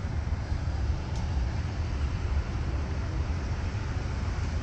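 Steady low outdoor rumble of road traffic and wind, with no distinct events.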